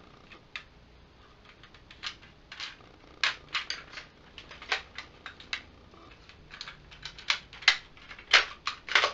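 Hard plastic clicks and clacks from a Power Rangers Lost Galaxy Megazord toy piece, the blue ape Galactabeast, being twisted and folded by hand. The clicks are irregular, sparse at first and quickening from about two seconds in, with the sharpest snaps near the end.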